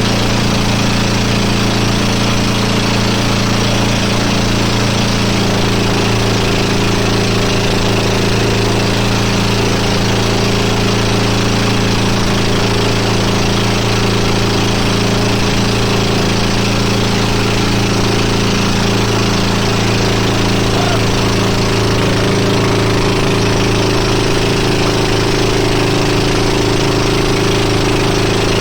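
Motorboat engine running at a steady speed, its drone holding one pitch.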